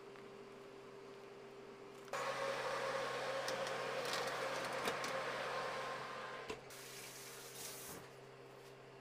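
A commercial oven's fan whirring, starting abruptly about two seconds in and stopping after a sharp click near two-thirds of the way through. A faint steady hum sits underneath.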